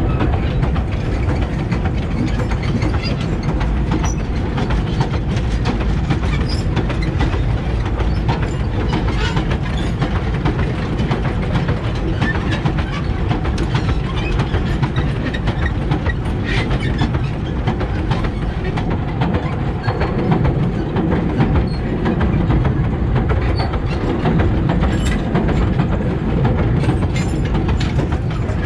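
Loaded sugar cane wagons rolling past close by: a steady rumble of steel wheels on the rails, with constant rattling and clanking from the wagons.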